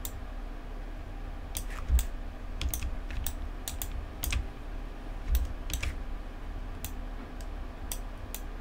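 Irregular clicks of a computer keyboard and mouse, roughly two a second, over a faint steady hum.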